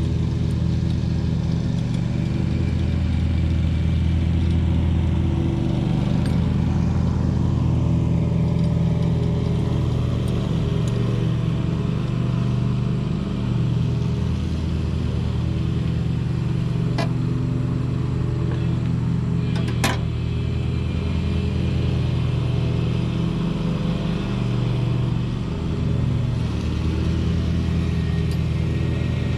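An engine running steadily, its speed shifting slightly now and then, with two sharp knocks near the middle.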